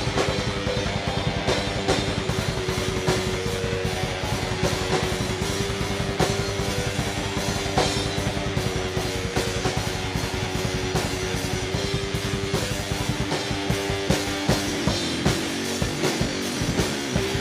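Rock band playing an instrumental passage: drum kit keeping a fast steady beat under guitar and bass. About thirteen seconds in the bass drops away and the drum hits come more spaced out.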